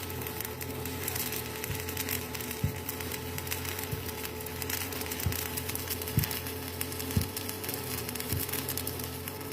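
Shielded metal arc (stick) welding with a 6013 rod: the arc makes a steady crackling sizzle dotted with louder pops about once a second, over a steady low hum.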